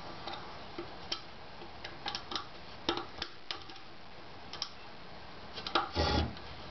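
Small irregular clicks and taps of a corner clip and bolt being fitted by hand to a 3D printer's bed plate, with a louder short knock or rub about six seconds in.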